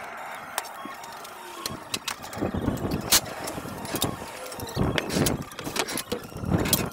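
Steel scaffold tubes and fittings clanking as transoms go in, a few sharp knocks at irregular intervals.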